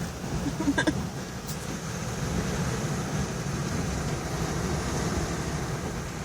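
Storm wind and heavy surf making a steady rumbling roar, with wind buffeting the microphone. A short pitched blip about a second in.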